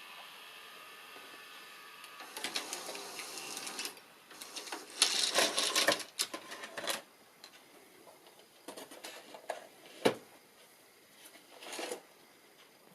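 Mitsubishi S-VHS video recorder's tape mechanism whirring and clicking in short, uneven spurts as it works, the busiest run about five to seven seconds in, with a single sharp click about ten seconds in.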